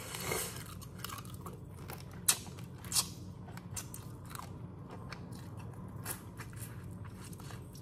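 Close-up eating of boiled crawfish: soft wet chewing and sucking with scattered crisp little clicks, two sharper ones about two and three seconds in.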